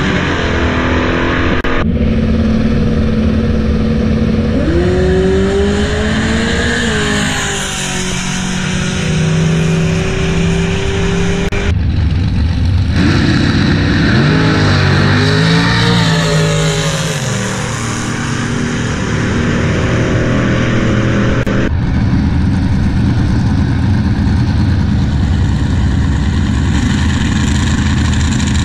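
Drag-race car engines running at the strip, revving up and down several times with steady running between. The sound changes abruptly about every ten seconds.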